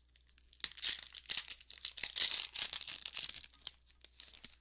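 Foil wrapper of an Upper Deck Allure hockey card pack being torn open and crinkled by hand: a dense crackling of tearing, crumpling foil that starts about half a second in and thins out near the end.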